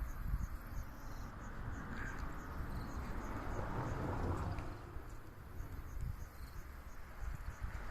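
Insects chirping in runs of short high pulses, several a second, that come and go, over a low steady rumble of wind.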